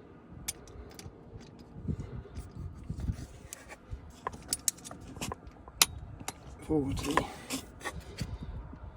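Irregular metallic clicks, clinks and scraping of hand tools worked on the crankshaft pulley bolts as they are tightened. There is a brief vocal sound about seven seconds in.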